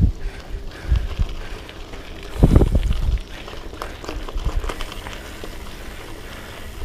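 Hardtail mountain bike ridden fast over a rough dirt and gravel trail: tyre and frame noise with low rumbling jolts over bumps, the biggest about two and a half seconds in, and scattered rattling clicks from the bike.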